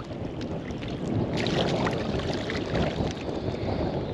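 Wind buffeting the microphone over sloshing shallow water, with a few splashes from a hooked redfish thrashing at the surface.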